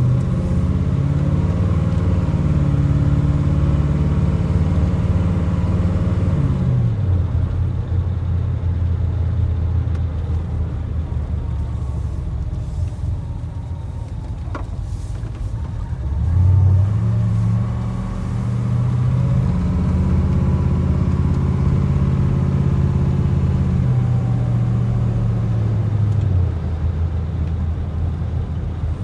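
A 1976 Cadillac Mirage's V8 engine heard from inside the cab while driving. It pulls steadily, then eases off about a quarter of the way in and runs quieter. Past halfway it picks up again with a rise in pitch and holds, then eases off near the end.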